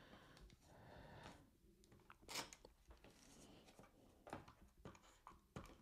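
Faint rustling and scraping of paper and cardstock pieces being handled and pressed down, with a tape runner laying adhesive; a few short scratchy rasps and soft clicks, the loudest scrape about two seconds in.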